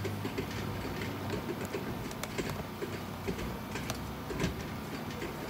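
Irregular metallic clicking and ticking from a 4L60E/4L65E transmission clutch drum being turned and rocked by hand on its hub. The clutch plate teeth catch on the splines while the drum is worked down to seat.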